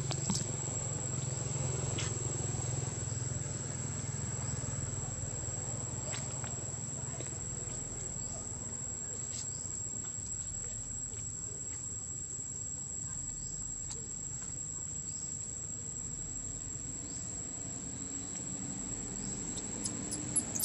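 Insects droning outdoors with one steady, unbroken high-pitched whine, over a low rumble, with a few faint clicks near the end.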